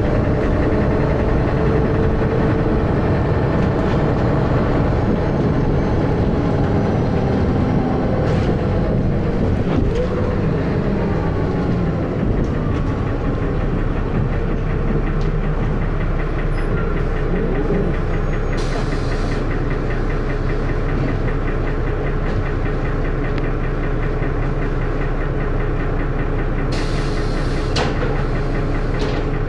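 Dennis Arrow double-decker bus's diesel engine heard from inside the bus, running with heavy thrash and a loud knocking. Its pitch falls over the first ten seconds as the bus slows, then it settles to a steady low run, with two short hisses around the middle and near the end.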